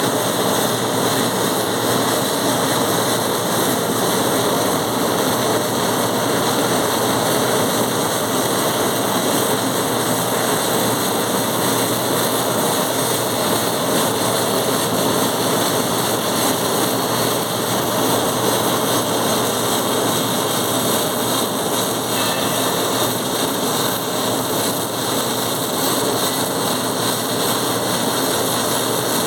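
Welding arc burning steadily with a dense crackling hiss.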